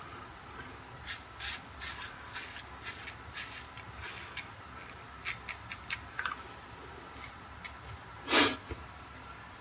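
Short, crisp scraping strokes of a 3D-printed safety razor cutting through lathered stubble, about two to three strokes a second with a pause near the end. A brief, louder rush comes about eight seconds in.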